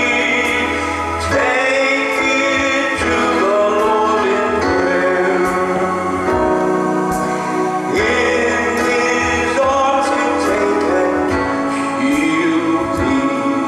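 A man singing a hymn to his own electronic keyboard accompaniment, holding long notes with a wavering pitch over sustained keyboard chords.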